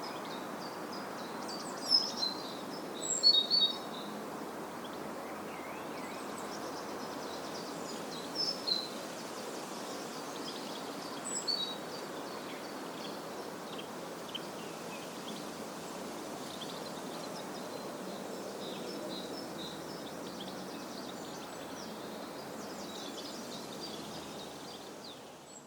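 Countryside ambience: a steady low hiss of background noise with small birds chirping and calling over it. The loudest chirps come about 2 and 3 to 4 seconds in, and the sound fades out at the very end.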